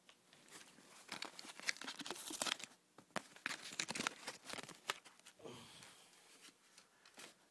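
Packaging being handled: crinkling and tearing in irregular bursts, with a short lull about three seconds in, getting softer over the last couple of seconds.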